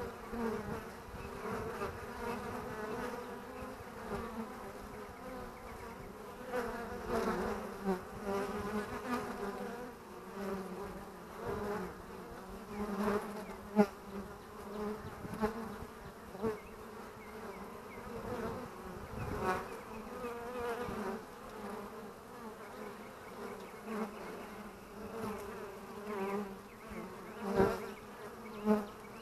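Honeybees coming and going at the hive entrance: a steady, wavering buzz of many wings, with brief louder buzzes as single bees pass close, sharpest about 14 seconds in and twice near the end.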